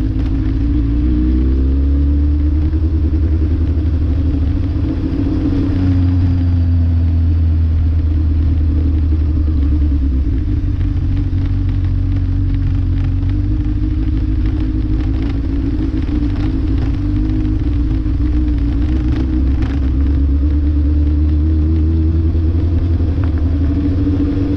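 A road vehicle's engine running while driving, over a constant low rumble. Its pitch rises about a second in and falls again around five to seven seconds in, as it changes speed.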